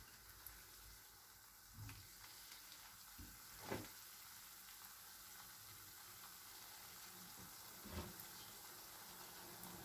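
Faint sizzling of bread rolls shallow-frying in hot oil in a nonstick frying pan, with a few soft knocks, the loudest about halfway through as a second roll is laid into the pan.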